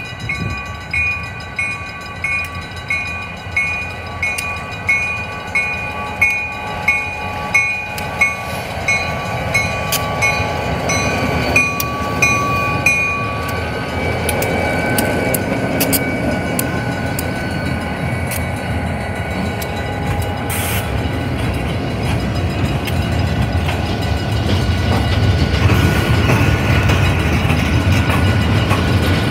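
A bell rings steadily, about one and a half strokes a second, and stops about halfway through, while the diesel locomotive of a freight train comes closer and grows louder. Then the locomotive's engine and the freight cars' wheels rumble and roll past close by, getting louder toward the end.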